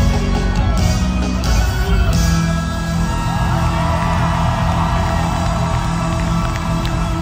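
Live gospel music from a concert stage: a band playing with singers, heard from among the audience in a large hall.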